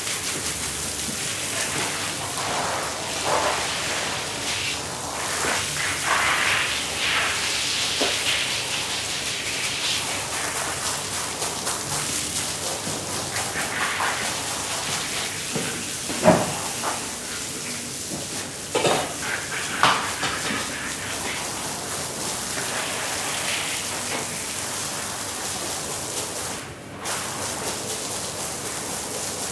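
Water spraying and splashing onto a rug as it is washed: a steady hiss with a few brief louder splashes.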